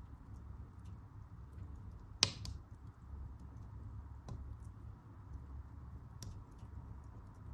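Wood fire crackling in a fireplace: a steady low rumble of flames with scattered small snaps, and a sharp, loud double pop from the burning logs about two seconds in. Fainter pops follow at about four and six seconds.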